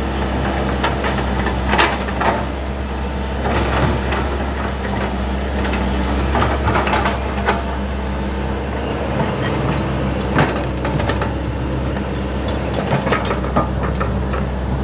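Hitachi hydraulic excavator's diesel engine running steadily under work, with scattered sharp knocks and clanks from the machine and the material it is handling.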